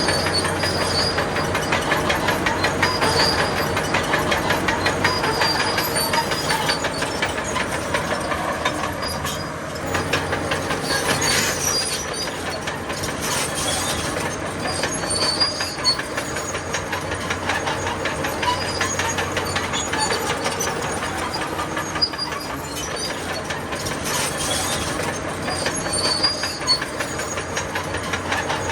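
Crawler bulldozer working: its diesel engine runs steadily under a fast, continuous clatter of steel tracks, with short high squeaks coming again and again.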